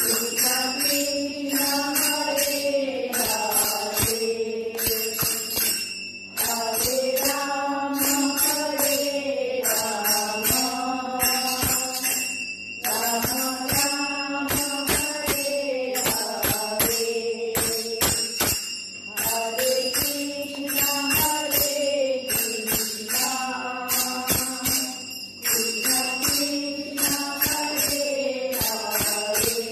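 Devotional kirtan: voices singing a chant phrase that repeats every few seconds, over steady strikes of a jingling tambourine.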